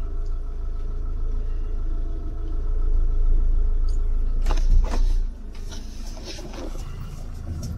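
Engine and cabin rumble of a Fiat-based motorhome moving slowly, heard from inside the cab. A few sharp knocks come about four and a half seconds in, and the sound drops a little just after.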